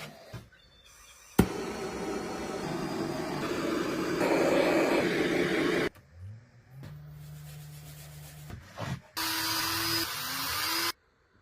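Woodworking power tools in several abruptly cut clips. First comes a long rush of noise that grows louder, then a steady motor hum, then a short loud burst of tool noise with a rising whine that cuts off suddenly.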